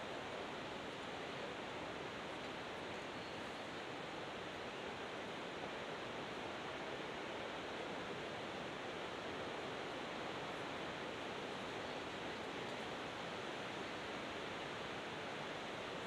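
Steady rushing roar of distant ocean surf breaking, an even wash of noise with no distinct swells or crashes.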